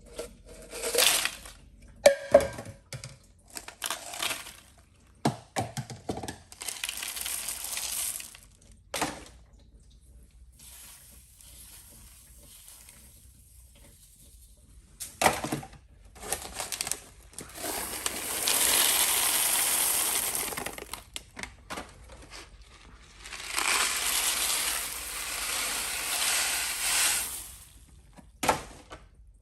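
Toilet flushing three times, each flush a few seconds of rushing water, with scattered knocks and clatter between the flushes.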